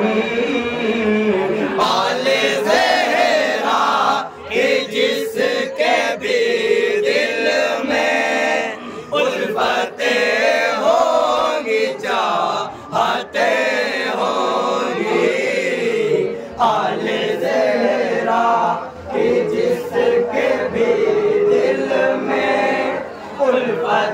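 Devotional chanting of a Muharram manqabat, a poem in praise of Imam Husain, sung in long wavering melodic phrases with short pauses between lines.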